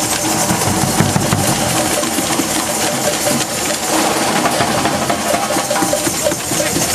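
Street carnival band playing loud: a dense, fast din of drums and cymbals, with faint held notes from the wind instruments underneath.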